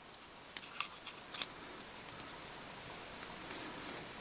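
A few light, sharp clicks in the first second and a half, then faint ticking and rustle: small handling noises at a fly-tying vise as a pinch of marabou is held to the hook and the bobbin thread worked.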